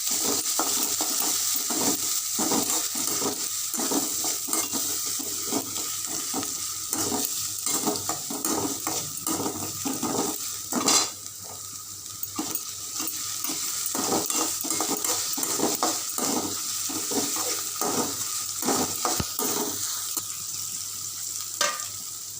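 Onions, dried red chillies, fennel seeds and ginger-garlic paste sizzling in hot oil while being sautéed, a spoon scraping and knocking against the pan over and over, with one louder knock about halfway through.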